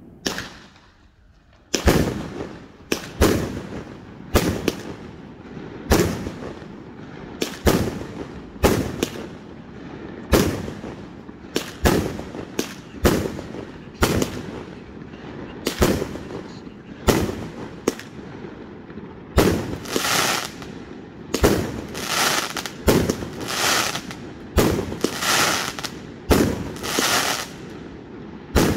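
A 132-shot consumer firework cake firing, loud sharp bangs about once a second after a short pause near the start. From about two-thirds of the way through, the shots come closer together with longer, noisier bursts.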